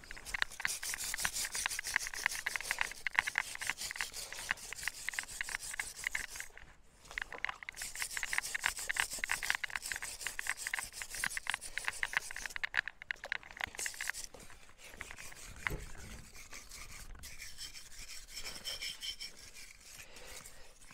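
Wire brush scrubbing the finned cylinders and crankcase of a Kawasaki Zephyr 550 engine to degrease it, in fast back-and-forth strokes. The scrubbing breaks off briefly about six and a half seconds in and stops about fourteen seconds in, leaving quieter handling sounds.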